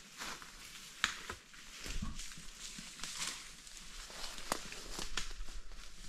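Footsteps crunching through dry forest litter and fallen pine debris, with irregular snaps and crackles of twigs underfoot and a soft thud about two seconds in.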